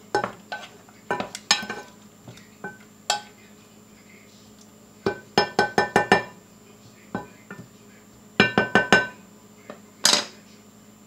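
Kitchenware clinking: hard ringing taps of a utensil against a pot, pan or glass, some single and some in quick runs of five or six, with a louder clatter near the end.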